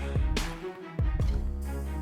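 Background music: a dramatic track with strings over a heavy repeating beat and bass.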